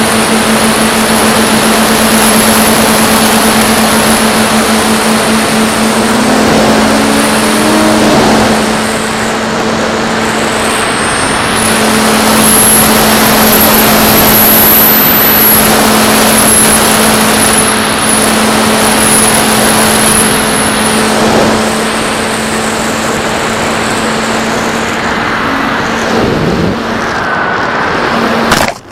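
Onboard audio from a Mako flying wing in flight: its electric motor and pusher propeller hum steadily under heavy wind rush, with a high motor whine rising and falling with the throttle. Near the end a sudden crash as it hits the brush, and the motor noise cuts off.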